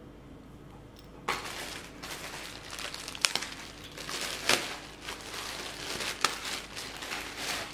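Packaging crinkling and rustling as swimwear is unwrapped and handled, starting about a second in, with a few sharp clicks.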